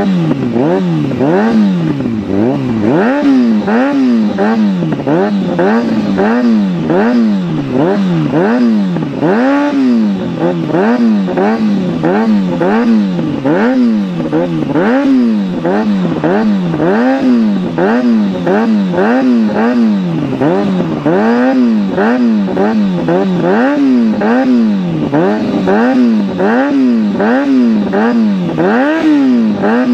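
Kawasaki Ninja ZX-6R's inline-four through an aftermarket full exhaust, revved at standstill in repeated throttle blips, the pitch rising and falling about once a second.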